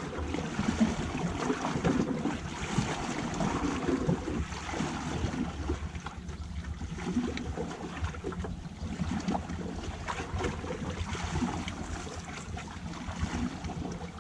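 Sea water washing and lapping against shoreline rocks, with wind buffeting the microphone.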